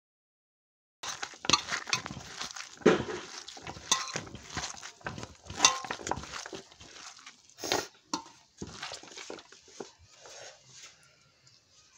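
Hand mixing and squeezing grated raw mango with herbs in a stainless steel bowl: an irregular run of knocks and scrapes against the metal, starting about a second in and dying down after about eight seconds.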